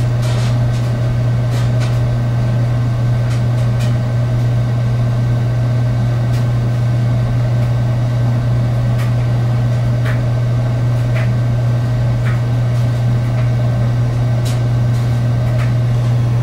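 Steady, loud low hum that holds unchanged throughout, with a few faint clicks now and then.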